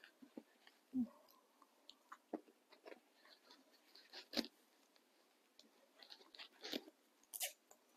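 Faint, scattered rustles and soft taps, about five in all, from a soft resting hand splint and its Velcro straps being handled and adjusted on a wrist.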